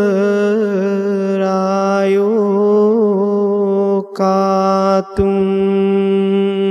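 Buddhist pirith chanting in Pali: a single voice drawing out each syllable slowly on one steady note with small wavers, with two short breaths about four and five seconds in.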